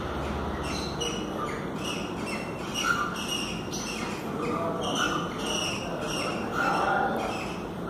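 Cockatiels chirping during mating: a quick series of short, repeated calls, about two or three a second, with one louder call near the end.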